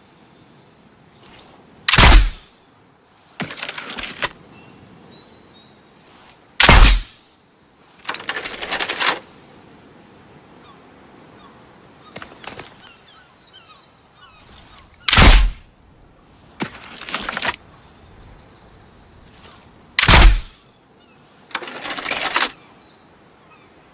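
Slingbow being shot four times: each shot is a loud, sharp snap, followed about a second and a half later by a quieter rattling noise lasting about a second.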